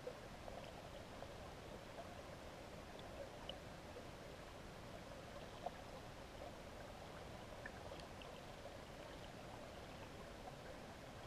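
Faint, steady, muffled rush of river water, heard underwater through a GoPro's waterproof housing, with a few small ticks, the sharpest a little past the middle.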